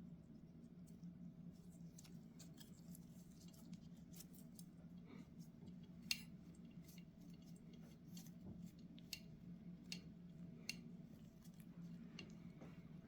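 Scattered light clicks and taps of small metal carburetor parts and hand tools being handled during a float bowl teardown, the sharpest about six seconds in, over a steady low hum.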